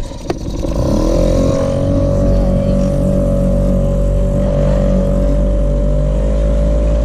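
Mercury 2.5 outboard motor throttling up: its pitch rises for about a second, then it runs steadily at cruising speed. A couple of sharp knocks sound right at the start.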